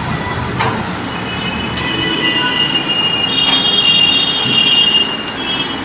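A cloth duster wiping a whiteboard: steady rubbing strokes with a high squeak that sets in about two seconds in and holds almost to the end.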